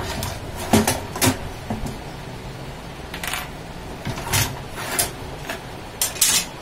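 Canon imageRUNNER fixing unit being handled: about half a dozen separate clicks and knocks of its plastic and metal parts as the web rod is locked in place and the assembly is set down on a table.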